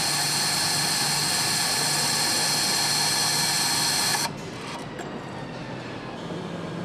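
A power tool running at a steady high-pitched whine, then stopping abruptly about four seconds in, while a motorcycle engine is being assembled.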